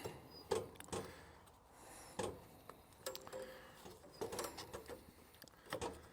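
A few irregular light clinks and knocks from hands working on a band sawmill's wheels and blade.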